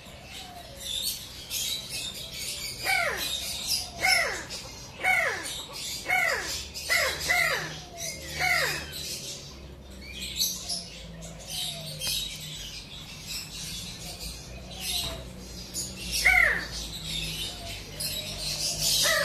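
Many birds calling together, with dense high chirping and squawks throughout. Over this, a louder call that slides steeply downward repeats about once a second for several seconds, then sounds again twice near the end.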